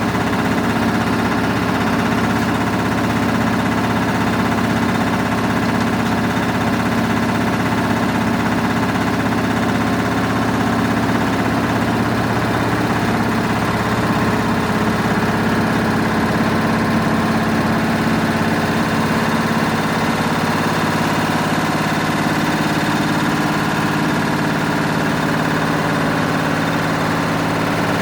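Samsung EcoBubble washing machine running its programme: a steady motor hum with several steady tones and a mechanical vibration that holds even throughout.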